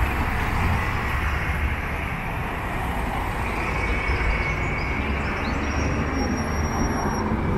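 Steady road traffic on a wide city street, a low rumble and hiss of passing cars and a motor scooter, with a faint thin whine in the middle.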